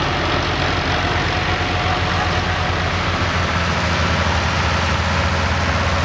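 Vintage tractor engine running steadily as the tractor drives off across the field.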